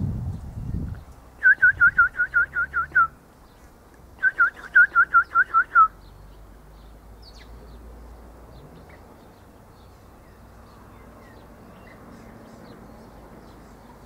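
Eastern rosella (Platycercus eximius) calling: two quick runs of about eight or nine short whistled notes each, roughly five notes a second, with a pause of about a second between the runs.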